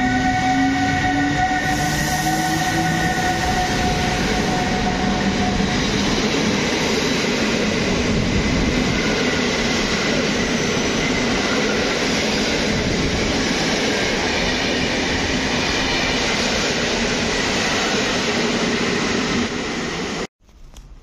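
Newag Griffin EU160 electric locomotive passing while accelerating: its traction motors give a whine that rises in pitch over the first few seconds. Then comes the steady rolling noise of Intercity passenger coaches going by, which cuts off abruptly near the end.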